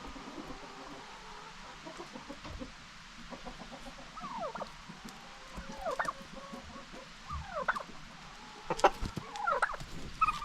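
Domestic turkeys and chickens calling: a run of short falling calls, about one a second, begins a few seconds in and grows louder toward the end, with a few sharp clicks near the end.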